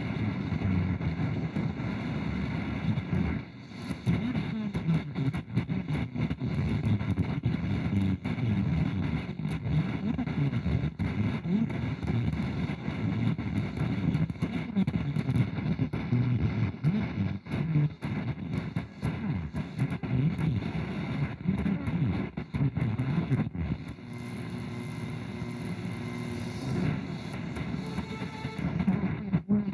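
AM radio tuned just off a station: hiss and crackling static, with the muffled, garbled music of an adjacent station bleeding through. About three-quarters of the way in, the crackling eases into a steadier hum.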